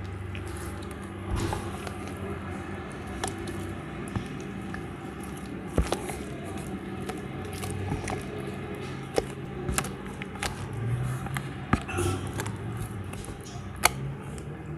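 Sticky wet dough being kneaded: irregular squishes and sharp tacky clicks, over a steady low hum.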